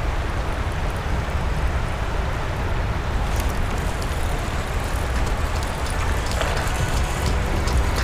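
Steady wind rumble on the microphone over the rush of shallow river riffles, with light clicks from about three seconds in as the fishing reel is cranked.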